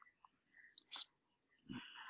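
A few soft computer-keyboard keystrokes, short sharp clicks in the first second, then a soft breath near the end.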